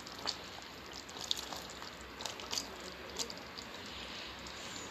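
Soaked chickpeas being tipped by hand into a steaming pot of simmering calf's feet: faint splashes and a few light ticks over a low, even liquid hiss.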